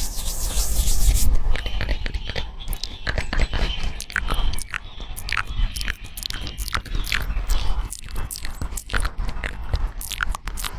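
Close-miked crisp crunching: many irregular sharp crackles in quick succession.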